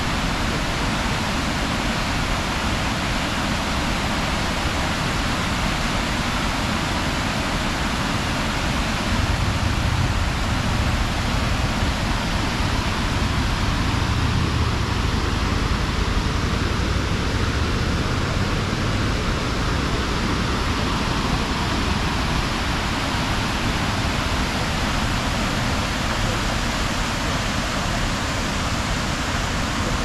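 Waterfall rushing steadily, a continuous dense roar of falling water, with a deeper low rumble swelling for a while in the middle.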